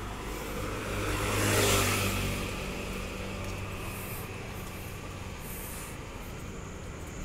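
A motor scooter rides past close by, growing louder to a peak about a second and a half in and then fading. Under it is a steady low hum of traffic.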